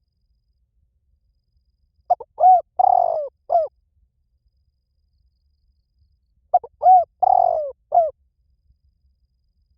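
Spotted dove cooing: two call phrases a few seconds apart, each a quick run of short coos around one longer, drawn-out coo.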